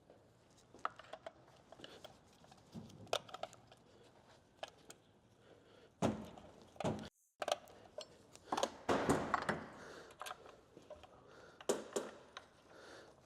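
Light metallic clicks, taps and clatter of chainsaw parts being handled as the saw chain and guide bar are fitted back onto a Stihl 500i chainsaw. The sound drops out for an instant about seven seconds in.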